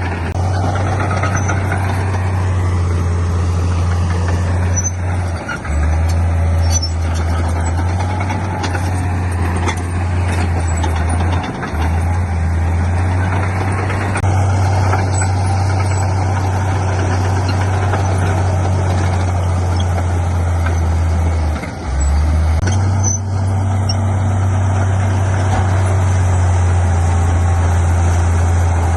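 Heavy diesel engine of earthmoving equipment running steadily under load, with a loud low drone that dips briefly three times.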